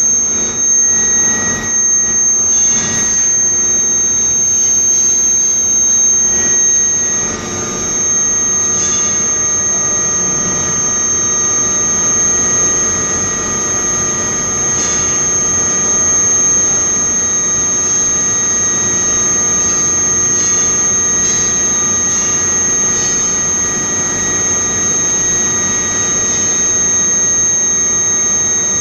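Induction heating furnace running with a steady, high-pitched whine over loud, even machine noise. A few short knocks come in the first few seconds.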